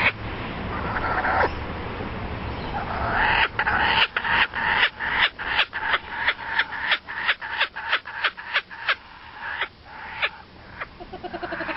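An animal calling in a quick run of short, repeated notes, about four a second, for several seconds before stopping.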